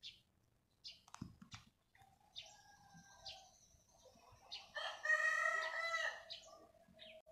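A rooster crows once, one long call of about a second and a half near the end, with small birds chirping around it.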